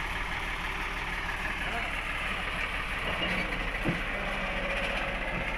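Farm tractor's diesel engine running steadily at idle, a constant low hum with no revving.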